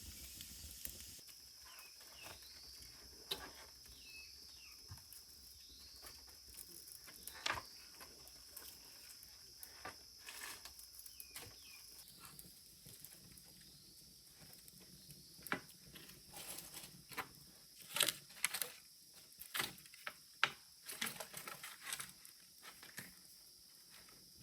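A steady high-pitched insect buzz with faint chirps, broken by scattered sharp clicks and knocks that come thicker and louder in the second half.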